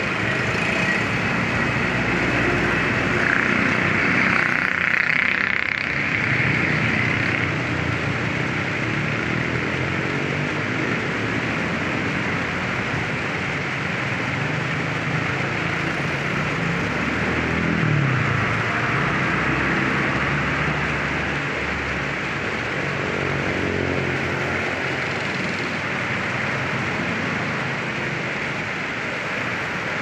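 Small waterfall: a heavy flow of water rushing and churning steadily over rocks.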